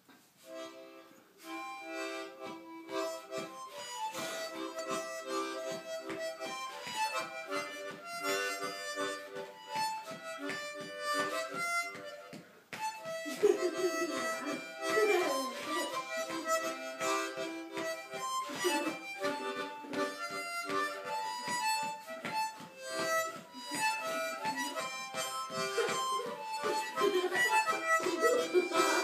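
Harmonica played in rhythmic chords, starting about a second in. From about halfway a lower, wavering sound joins in over the harmonica.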